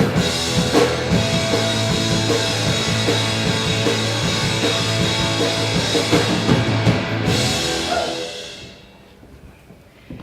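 Rock music with drum kit and guitar, fading out about eight seconds in.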